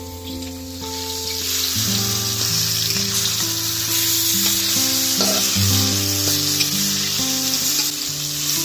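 Food frying in hot oil in a pan, a steady sizzle that swells up about a second in, over soft background music with sustained notes.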